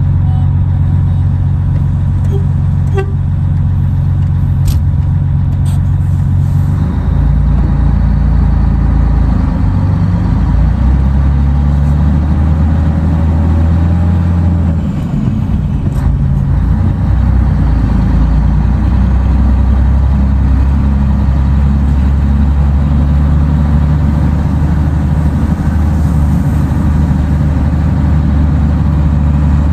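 Scania 113 truck's six-cylinder diesel engine running under way, heard from inside the cab. The engine's pitch drops and rises a few times in the first half, then holds steady.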